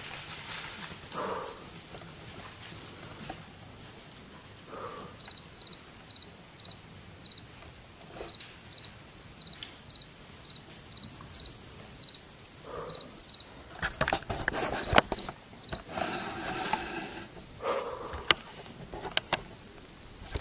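Woodland ambience: an insect chirping in a steady high-pitched pulse, about three chirps a second. About two-thirds through, a short burst of crackling and crunching, like movement in dry leaves.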